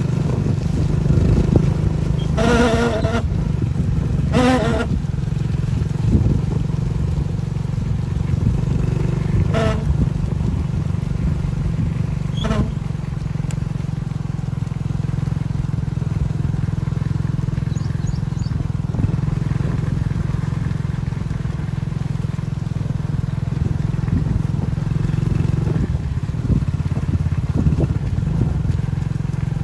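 A motorcycle engine running steadily at low speed, pacing alongside the runners, with a few brief shouts in the first half.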